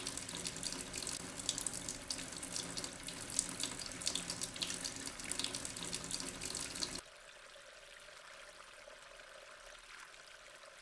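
Running water splashing and trickling steadily with many small crackling splashes, cutting off abruptly about seven seconds in to a faint hiss.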